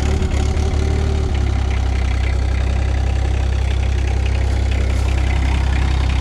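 Wacker Neuson mini skid steer engine idling just after a cold start, left to warm up. It runs a little unevenly for about the first second, then settles into a steady idle.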